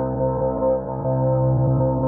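Ambient meditation music: a sustained synth drone with steady held tones and a deep low hum.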